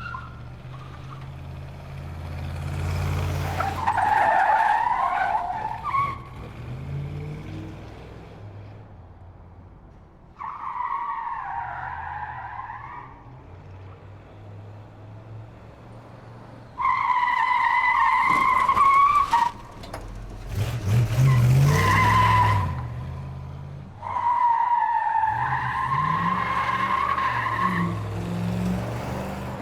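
Muscle car engine running and revving as its tyres squeal through repeated skids: five squeals of a few seconds each, the loudest about halfway through, with the engine's low rumble underneath.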